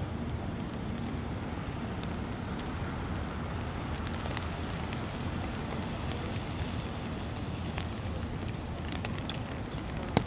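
Steady outdoor street ambience: a low, even traffic-like rumble with scattered faint ticks and crackles, and one sharp click near the end.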